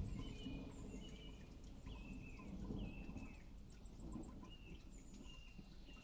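Thunder rumbling away after a clap, fading, with a couple of smaller low swells, while birds chirp repeatedly over it in short high calls, including a quick run of chirps a little before the middle.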